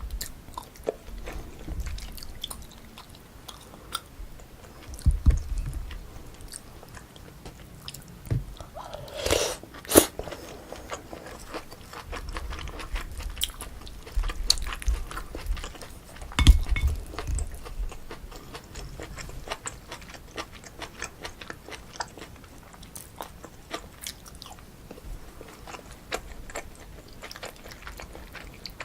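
Close-miked eating sounds of pork kimchi stew with rice: steady chewing with wet mouth clicks, and a few louder sharp sounds about 5, 10 and 16 seconds in.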